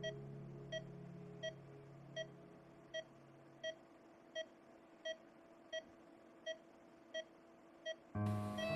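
Patient heart monitor beeping steadily, a short pitched beep about three times every two seconds, marking a regular heartbeat. A soft held music chord fades out under the first few beeps, and organ music comes in loudly near the end.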